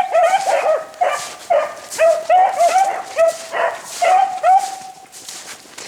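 Beagles baying in a rapid run of short, loud yelping cries while on a rabbit's trail: the pack is running the scent. The cries stop about five seconds in.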